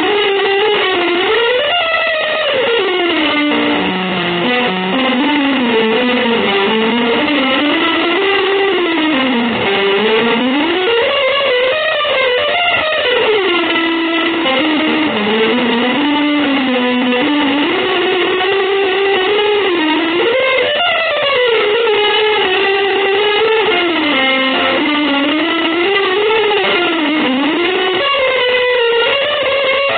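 Electric guitar playing a free, wandering melodic line through effects, its pitch gliding smoothly up and down in long, sustained phrases.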